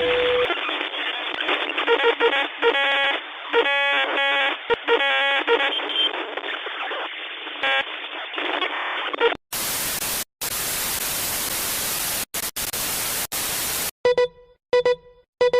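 Mock emergency alert broadcast audio. For about nine seconds there is muffled, radio-like static crossed by choppy distorted tone bursts. Then comes loud full hiss static, cutting out briefly a few times, and from about 14 seconds in a string of short identical beeps, roughly one every 0.7 seconds.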